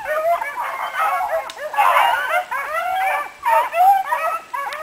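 A pack of bluetick coonhounds baying together, many overlapping calls at once: the hounds giving mouth as they run a scent trail.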